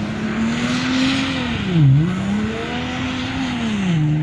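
Rally 4x4's engine running at high revs as it speeds across sand. The revs dip sharply and climb back about two seconds in, then drop to a lower steady note near the end, over a hiss of tyres churning sand.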